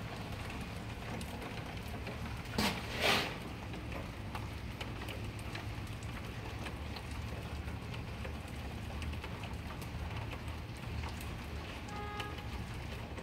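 Steady rain falling, an even hiss throughout. Two short louder rushes of noise come close together about two and a half to three seconds in, and a brief pitched beep sounds near the end.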